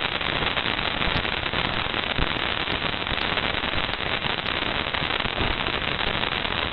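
Parker Solar Probe's plasma-wave data played as sound: a steady, dense crackle of static like an old TV after broadcasting stops, with scattered sharper ticks. It is made by thousands of tiny dust grains striking the probe.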